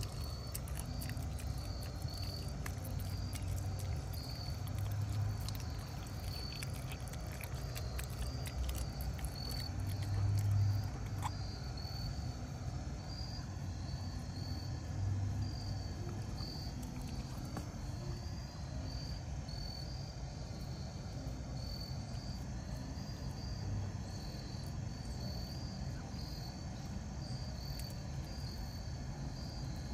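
Steady insect chirping, a short high tone repeating over and over, over a low rumble that swells a few times. Through roughly the first ten seconds come faint crisp clicks of a puppy crunching a raw chicken head.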